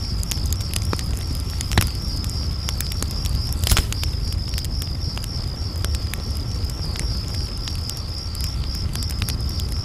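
Campfire crackling and popping, with two sharper pops about two and four seconds in, over a low rumble and crickets chirping steadily.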